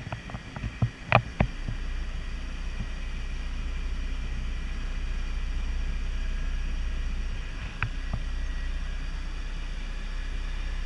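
Jet ski running steadily across the water, heard as a steady low noise with a faint high whine. A few sharp knocks come in the first second and a half, and one more about eight seconds in.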